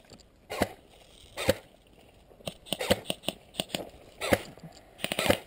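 Airsoft rifle fire: single sharp shots about a second apart, then a quicker string of shots, and a fast full-auto burst near the end.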